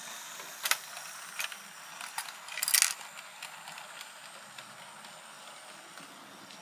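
Hornby OO-gauge GWR 0-4-0 tank locomotive and coaches running around a model railway: a faint steady running noise with a few sharp clicks, the loudest a quick cluster just under three seconds in.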